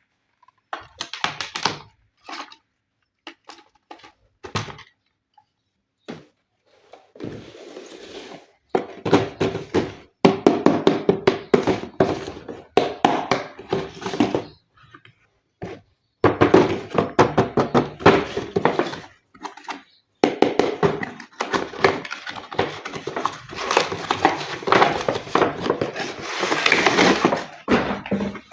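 Scattered knocks, then dense rapid clattering and clicking of hard plastic, typical of a plastic RC toy car and its packaging being handled.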